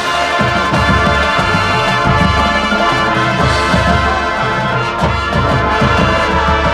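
High school marching band playing: brass holding loud sustained chords over low drum hits.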